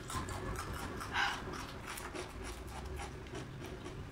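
Papery skin of a garlic bulb crackling and rustling under the fingers as it is peeled, in many small scattered crackles, with one louder rustle about a second in.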